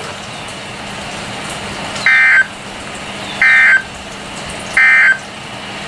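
Emergency Alert System end-of-message data bursts on a NOAA Weather Radio broadcast: three short, buzzy digital squawks about 1.4 seconds apart over a steady radio hiss. They mark the end of the special marine warning.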